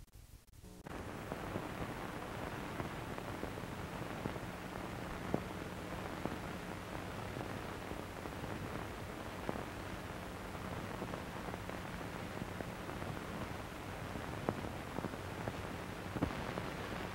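Steady hiss with occasional pops and a low steady hum, starting about a second in: the surface noise of an old film print's soundtrack before any sound is recorded on it.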